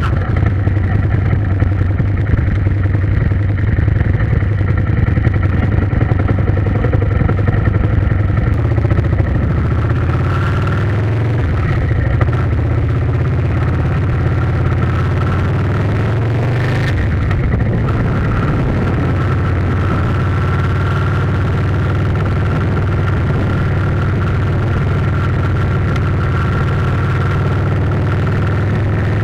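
An engine running steadily, its note shifting slightly about ten seconds in and again about seventeen seconds in.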